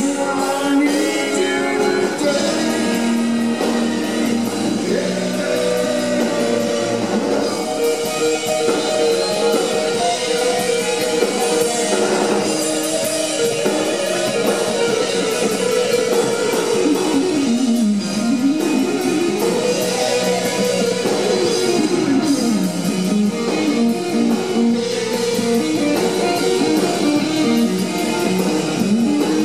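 Live rock band playing: an electric guitar leads with long sliding, bending notes over the drums.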